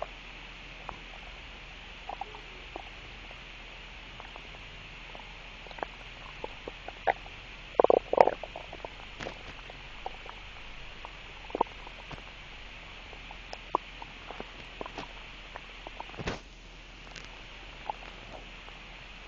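Human stomach gurgling: scattered short gurgles and pops, with the loudest cluster about eight seconds in.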